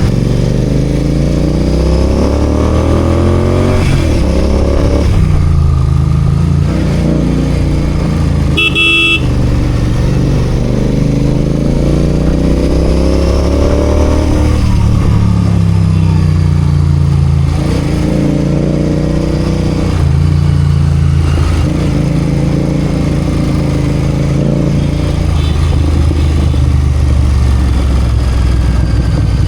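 Royal Enfield Continental GT 650's 648 cc parallel-twin engine running in city traffic, revving up and easing off in repeated rising and falling pulls. A vehicle horn toots briefly about nine seconds in.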